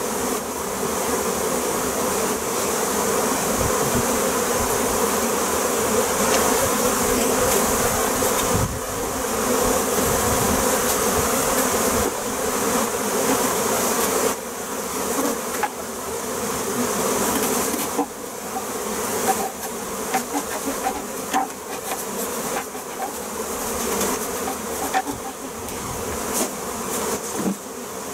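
A mass of honeybees buzzing in a steady drone as a box of bees is shaken and knocked out into a wooden hive. Short knocks and thumps of the wooden box come through, more often in the second half.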